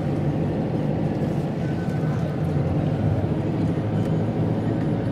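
Car engine and tyre noise heard from inside the cabin while driving, a low steady rumble.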